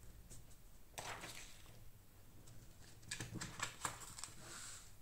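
Faint handling sounds of a sheet of paper and a pen on a desk: light taps and a short rustle as the sheet is smoothed, and a cluster of small sharp clicks about three to four seconds in as the pen is picked up.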